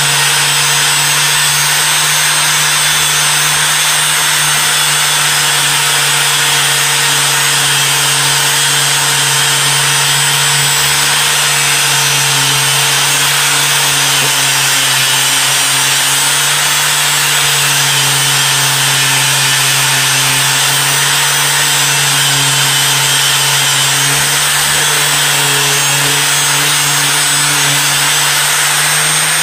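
Electric angle grinder running steadily while grinding the rusty steel of an antique hatchet head, with a constant motor hum under a harsh grinding hiss.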